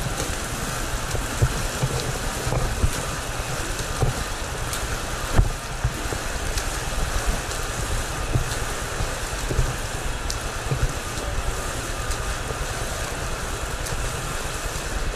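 Splashing and churning water from a swimmer's front-crawl arm strokes and kick, with scattered small clicks, over a steady low rumble.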